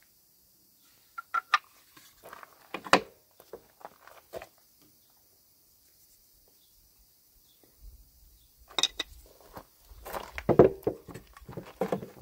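Knocks and clatters of core-box and pattern pieces being handled and set down on a wooden table, in scattered bursts with a quiet stretch in the middle.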